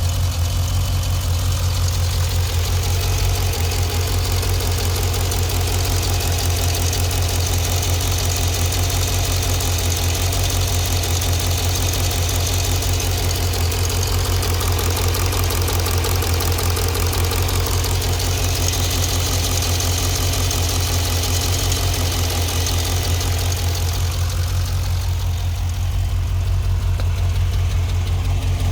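2015 Dodge Challenger SRT 392's 6.4-litre Hemi V8 idling steadily with a rapid, regular ticking. The owner suspects the well-known 'Hemi tick', bad lifters and camshaft, or broken exhaust manifold bolts.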